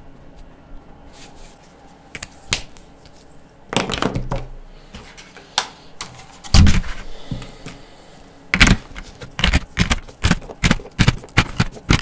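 Plastic marker tray and jumbo felt-tip markers being handled on a table: scattered small clicks, a knock about six and a half seconds in, then a quick run of plastic clicks and rattles from about eight and a half seconds on.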